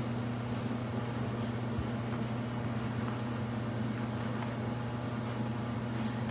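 Steady low electrical-type hum, with a second tone above it, over an even background of room noise. It holds level throughout with no clear events.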